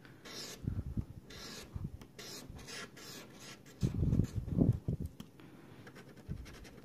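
Scratch-off lottery ticket being scraped off with a small metal edge: a run of short, quick scratching strokes, with a few louder dull bumps against the table about four seconds in.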